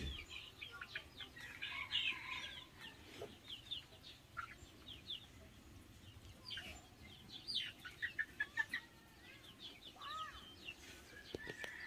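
Chickens clucking, with many short, high chirps scattered throughout and a lower cluck near the end.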